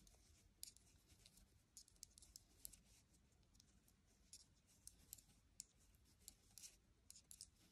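Near silence with faint, irregular light clicks of metal knitting needles tapping together as stitches are purled.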